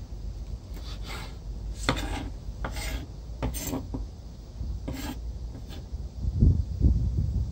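Kitchen knife slicing through a bundle of chives against a bamboo cutting board: about five short rasping cuts, spaced roughly a second apart. A low rumble follows near the end.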